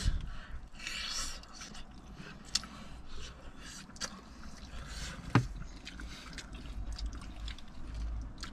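Close-up eating sounds of saucy chicken wings: wet chewing and lip-smacking, with fingers tearing meat off the bones and a few sharp clicks.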